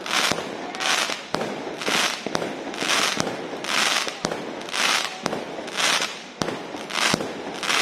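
Fireworks going off in a steady, even run, about one sharp bang a second, each followed by a brief hissing crackle.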